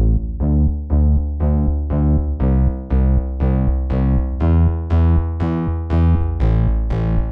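Background music: a synthesizer and electric-piano track with a steady beat of repeated notes, about two a second, over a heavy bass.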